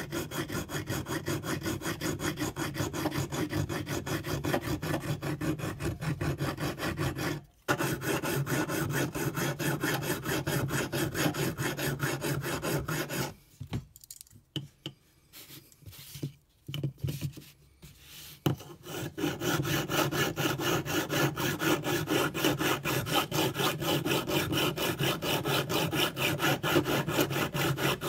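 Steel vernier caliper being abraded by hand, with rapid, even back-and-forth scraping strokes, part of derusting and smoothing its stiff, rusty slide. The strokes stop briefly about a quarter of the way in. Later they give way for several seconds to a few scattered scrapes before resuming.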